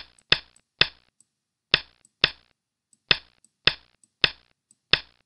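A Go program's stone-placement sound effect clicking with each move as the game is stepped through: about nine sharp clacks at uneven intervals, roughly half a second apart, with fainter high ticks between them.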